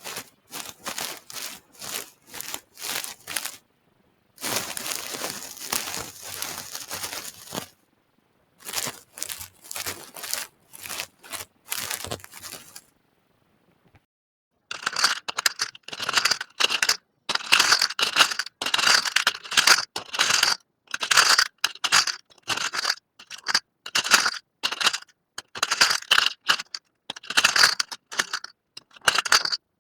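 Small trinkets being handled close to the microphone: runs of short, crisp scraping and crunching strokes, with a steady rustling stretch a few seconds in. Short pauses come between the runs, and the strokes grow dense and brighter from about halfway on.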